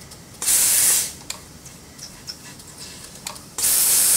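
Prophy-Jet air polisher handpiece spraying its jet of air, powder and water onto the teeth. A short hiss comes about half a second in, then a steady hiss starts near the end.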